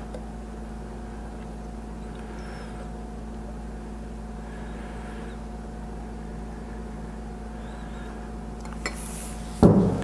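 Liquid poured from a glass beaker into a small spray bottle, a faint trickle over a steady low hum. Near the end the glass beaker is set down on the bench with a loud knock.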